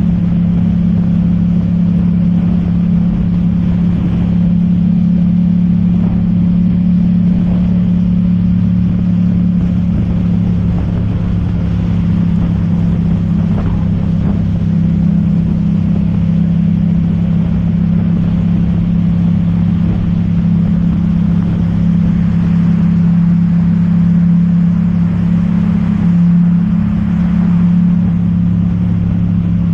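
Yamaha MT-07's 689 cc parallel-twin engine running steadily at highway cruising speed, heard from on board the motorcycle, with a steady rush of wind and wet-road spray behind it.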